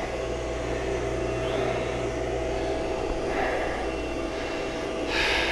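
Steady low machinery hum with a faint steady tone running through it, and a short hiss near the end.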